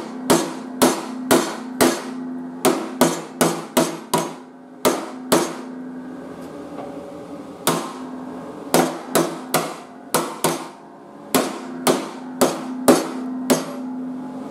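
Hammer blows on the sheet steel of a mower deck, knocking down a high spot: sharp metallic strikes about two a second, with a pause of about two seconds midway.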